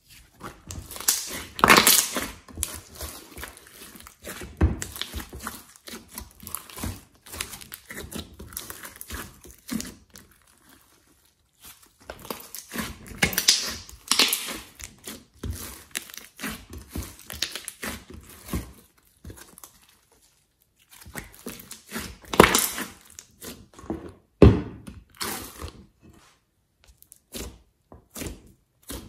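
Glossy slime mixed with clay being kneaded, stretched and poked by hand: an irregular run of short sticky clicks and squishes as it is worked and pulled apart. The run comes in bursts, with a couple of brief pauses.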